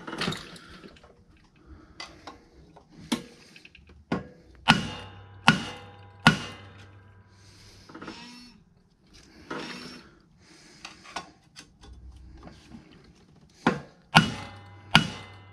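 Brass hammer striking the flywheel nut of a Kohler Courage small engine while the flywheel is pried, to shock it off the crankshaft. There are sharp metal blows, several in the first six seconds, a pause, then three more close together near the end, some with a brief ring.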